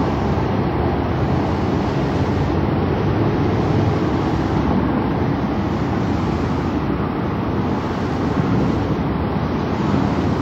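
Steady, even background rumble of the waterfront on an old cassette tape recording, with no whistle or other distinct sound standing out.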